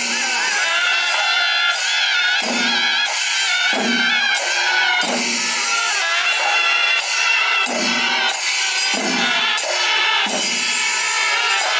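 Loud music with drums and cymbals, lower drum beats recurring about every second or so under a wavering high melody.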